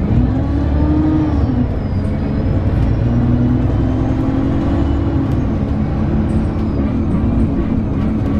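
ADL Enviro 300 bus engine and drivetrain running under way, its pitch rising, dropping about a second and a half in, then climbing again and holding steady.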